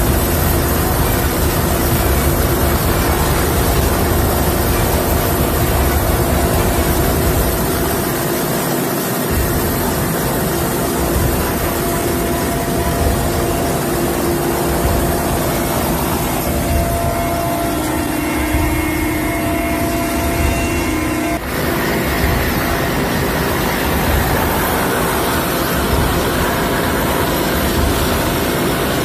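Helicopter engine and rotor running as it hovers, heard from right at the open cabin door: a loud, steady drone with a steady whine on top, briefly dipping about three-quarters of the way through.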